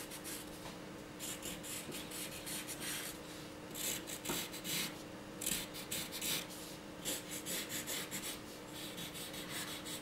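Graphite pencil scratching on drawing paper in clusters of short, quick down-and-up strokes, over a faint steady hum.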